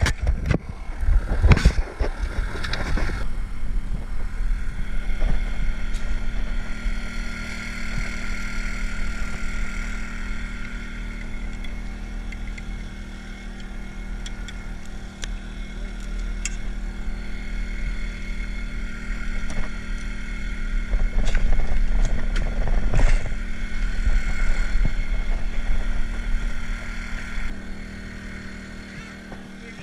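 A small engine runs steadily aboard a boat with a constant low hum. Knocks and clatter come about two seconds in and again about two-thirds of the way through.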